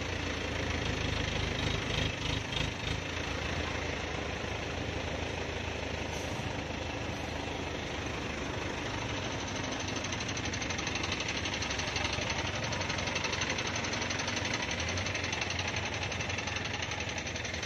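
A heavy vehicle's diesel engine idling steadily.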